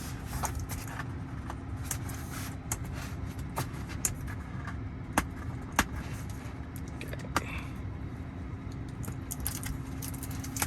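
A screen protector's retail package being opened and handled by hand: scattered sharp clicks and rustles of cardboard and plastic, over a steady low hum.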